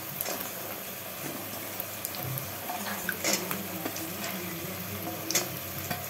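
Onions frying in hot oil in a pan, a steady sizzle, with a few light clicks of a spatula against the pan.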